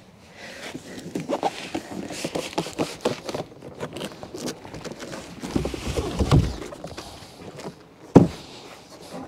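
Cardboard boxes scraping and rustling as a large boxed solar panel suitcase is slid out of its outer shipping box, with a low rumble about six seconds in and a single sharp thump about eight seconds in.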